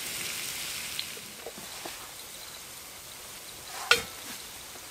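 Diced potatoes frying in oil in a frying pan, a soft steady sizzle with a few small ticks and one sharper click about four seconds in.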